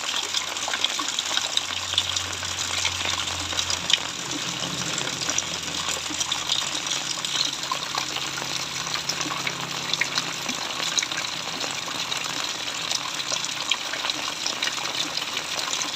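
Rain falling steadily: a dense, even hiss flecked with many small drop ticks.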